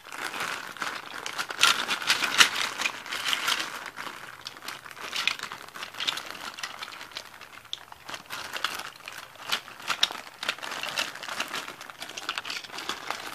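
Clear plastic bags holding small die-cast toy cars crinkling as they are handled and turned over, with irregular crackles and clicks throughout.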